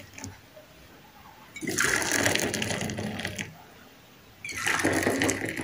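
Milk tea poured from a pot into stainless-steel mugs, splashing and filling the metal cups. Two pours, each lasting about two seconds, with a short pause between.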